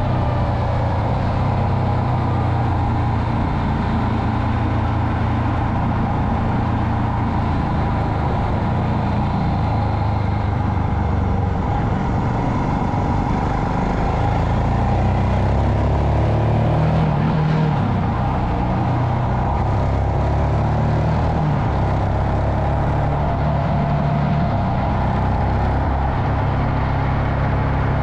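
Royal Enfield Himalayan's single-cylinder motorcycle engine running steadily at low revs while riding, with wind rushing over the camera microphone.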